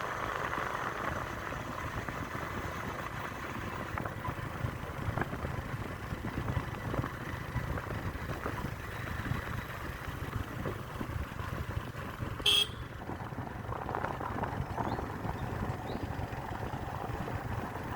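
A road vehicle running steadily, with engine rumble and road noise, and one short horn toot about twelve seconds in.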